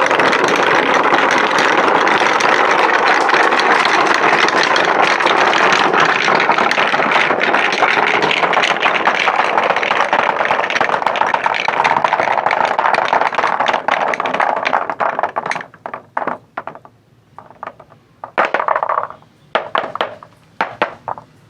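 Marbles rolling down wooden tracks: a dense, continuous rolling rattle full of fine clicks. About fifteen seconds in it thins out into scattered clacks and short rolls as the last marbles run through.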